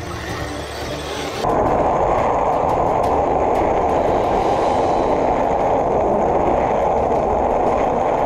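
An RC crawler truck driving through a muddy water rut, heard from a GoPro mounted under its chassis: a loud, muffled rumble of splashing water and drivetrain that starts abruptly about a second and a half in.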